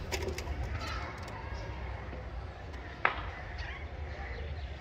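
Outdoor residential ambience: a steady low rumble with faint distant voices and scattered calls, a few light clicks near the start, and one sharp click about three seconds in.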